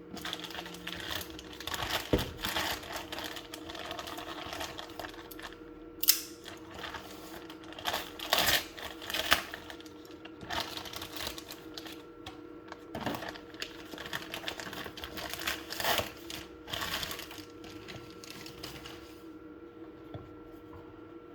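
Knife packaging being handled and opened: irregular rustling and scraping with sharp taps and clicks, the loudest knocks about six seconds in and again around eight to nine seconds, dying away near the end. A steady faint hum runs underneath.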